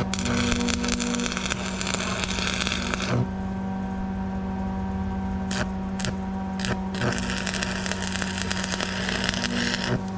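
Stick-welding arc crackling as holes in a split PTO shaft tube are filled, in two runs of about three seconds, with a few sharp taps between as the rod is struck again. The arc is burning the holes bigger rather than closing them. A steady hum from the welder runs underneath.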